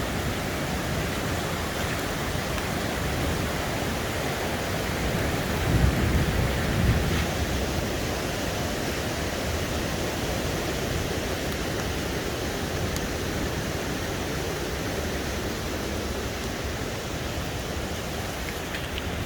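Waterfall rushing steadily, the water running very strong, with a couple of low thumps about six and seven seconds in.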